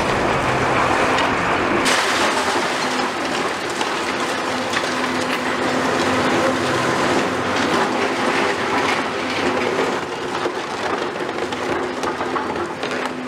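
CAT 390F excavator with a Cat C18 diesel running at a steady working drone while its demolition crusher jaws bite and pick through concrete rubble, with irregular crunching and clattering of broken concrete and rebar.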